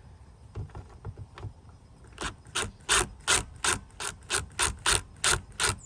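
Screwdriver backing out a screw from an old doorbell button, making a steady run of sharp clicks at about three a second from about two seconds in, with a few faint clicks before.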